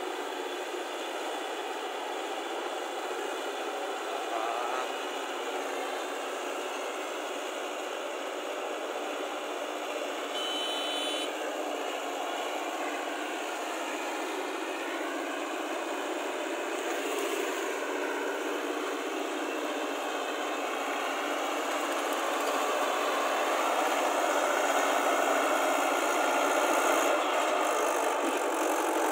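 Swaraj tractor's diesel engine running steadily as the cage-wheeled tractor churns through a flooded, muddy paddy field, getting louder over the last several seconds as it comes closer.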